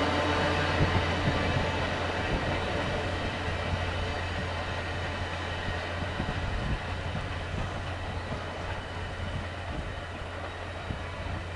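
Passenger train cars rolling past on the rails and drawing away, their wheels rumbling with scattered knocks. The sound fades steadily as the rear of the train recedes.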